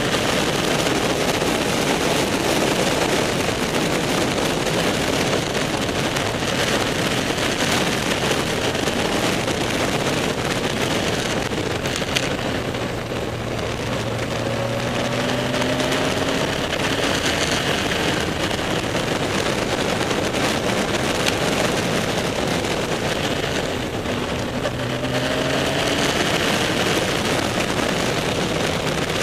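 Wind rushing over a camera on a moving motorcycle, with the motorcycle's engine running underneath. The engine note rises twice, about halfway through and again a few seconds before the end, as the bike accelerates.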